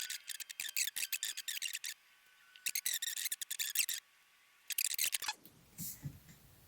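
Typing on a laptop keyboard: rapid key clicks in three quick runs with short pauses between them.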